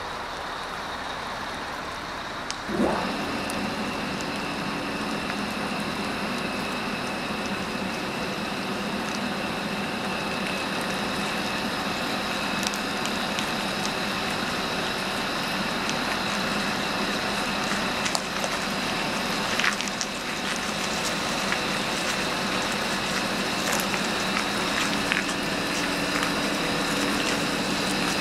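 Heavy truck-and-trailer combination driving slowly past, running steadily with a high whine over its rumble. About three seconds in there is a brief, loud rising sweep.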